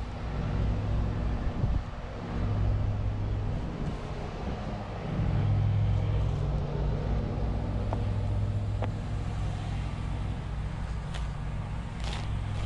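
An ASV compact track loader's diesel engine runs steadily close by, its level stepping up about a second and again about five seconds in. Over it come a few sharp scrapes and clicks from a shovel digging in soil.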